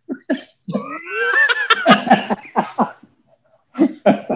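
A man laughing: a few short bursts, then a longer laugh whose pitch rises and breaks, and a few more short bursts near the end.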